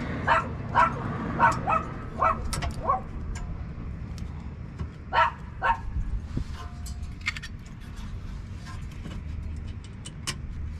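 A dog barking in a quick series of about seven barks, then two more about five seconds in. Sharp metal clicks from brake parts being handled are heard throughout.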